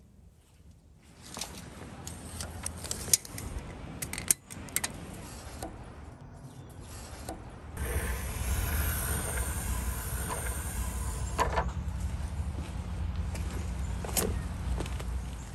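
Scattered light clicks and taps for the first few seconds. Then, about eight seconds in, small ice pellets falling and pattering on a wooden tabletop begin as a steady rush, with a low wind rumble on the microphone.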